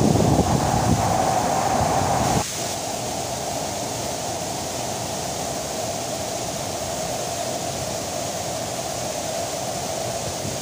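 Waterfall rushing steadily. A low wind rumble on the microphone runs under it for the first couple of seconds, then cuts off abruptly about two and a half seconds in, leaving a steadier, slightly quieter rush of water.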